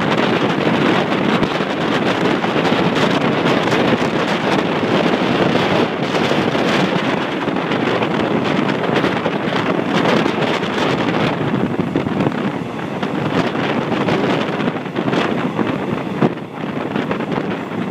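Wind rushing over the microphone held out of the open window of a moving passenger train, mixed with the train's steady running noise.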